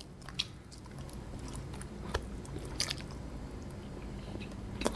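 Close-miked mouth sounds of a person biting and chewing soft agar-agar jelly straight from a paper drink carton: faint, with a few short wet clicks, the sharpest near the end.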